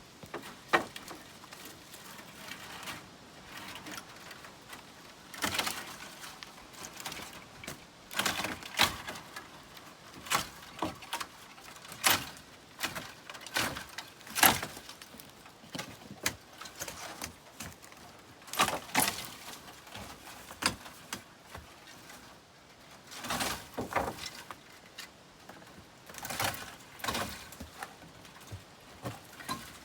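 Chicken wire being worked loose and pulled off seedling bags: irregular short rustling and knocking handling sounds every second or few.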